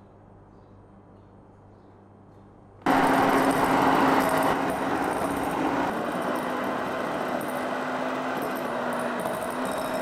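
Electric hand mixer switching on about three seconds in and running steadily with a whirring hum, its beaters whipping egg whites into a stiff foam in a glass bowl. It is loudest just after starting, then settles a little lower.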